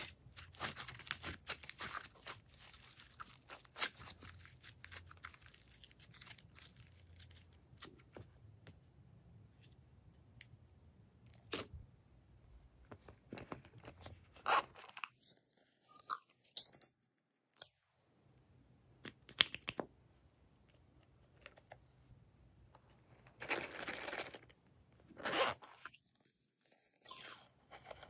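Hands working slime and add-ins: scattered crackling, tearing and clicking sounds in short bursts, with silent gaps between them. The densest burst comes about three-quarters of the way through.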